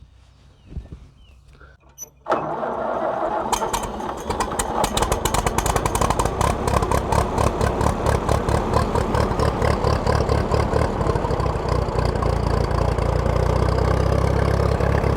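Allis-Chalmers WD tractor's four-cylinder engine being started: it cranks suddenly about two seconds in, catches a second or so later, and then runs steadily with a fast, even firing beat.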